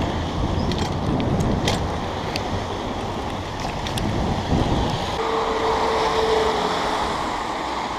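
Wind buffeting the microphone while riding a BMX bike along a wet road, with passing traffic and a few sharp rattling clicks. About five seconds in, a steady whine holds for a second or so.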